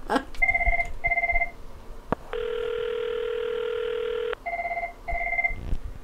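Cisco 7965 IP phone ringing for an incoming call, its electronic ringtone a pattern of short double beeps: two pairs, a pause, then two more. Between them comes a steady tone of about two seconds, the ringback heard from the calling rotary handset.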